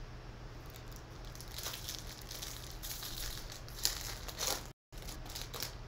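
Foil trading-card pack wrapper crinkling and tearing as it is ripped open by hand, in a series of short crackles.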